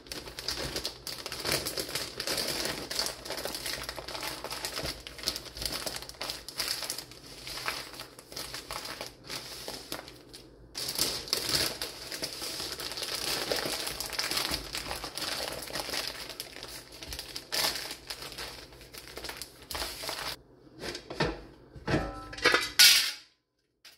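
Plastic mushroom spawn bags full of hydrated millet crinkling as they are folded, pressed and handled. Near the end a few separate knocks as the lid of a Presto aluminium pressure cooker is twisted and handled.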